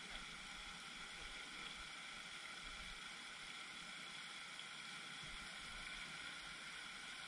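Steady, faint hiss of splashing water from a fountain spraying onto the pond.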